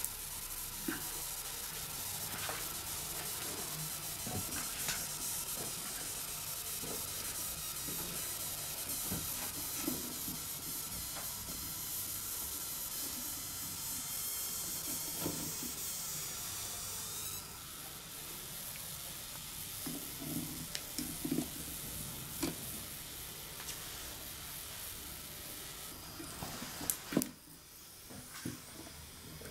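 Chestnuts roasting on a wire grill over hibachi charcoal, with a steady hiss and sizzle that drops off suddenly a little past halfway. Scattered light clicks and taps of metal tongs on the chestnuts and the wire mesh as they are turned, a few louder near the end.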